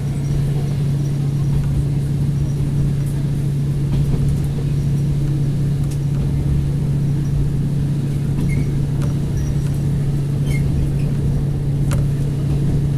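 Inside a KiHa 40 diesel railcar under way: a steady diesel engine hum with low running rumble from the wheels and track, and a few faint clicks.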